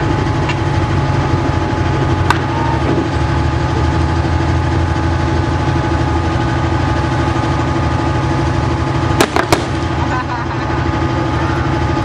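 Armoured fighting vehicle's engine idling steadily. Sharp shots crack over it, one a couple of seconds in and two in quick succession about three-quarters of the way through.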